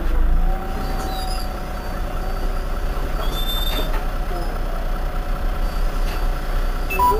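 Irisbus Iveco Citelis 18 city bus idling at a standstill with a steady low engine rumble; a short electronic beep sounds near the end.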